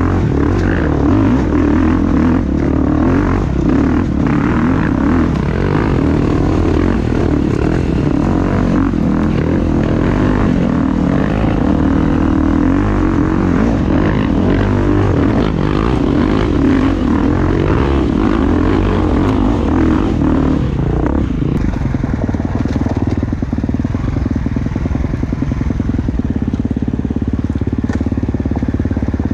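Gas Gas 350 four-stroke single-cylinder enduro motorcycle engine running, its revs rising and falling. About twenty seconds in it settles to a lower, steadier note.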